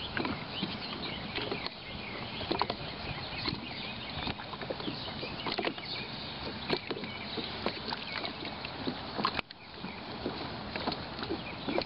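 Small waves lapping and splashing against the shore, a steady wash broken by many short, sharp splashes.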